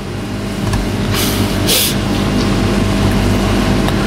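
A motor vehicle's engine running with a steady low hum, getting louder over the first second, with a short hiss about a second and a half in.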